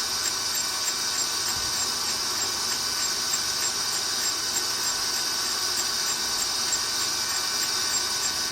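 Tsugami BE-12V CNC screw machine running a live milling cut on its Z-axis: a steady high-pitched whine and hiss that cuts off suddenly at the very end.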